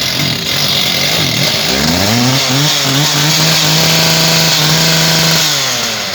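Small petrol engine of a concrete pile cutting machine running, then revved up in steps about two seconds in, held at high speed for a couple of seconds, and let back down near the end.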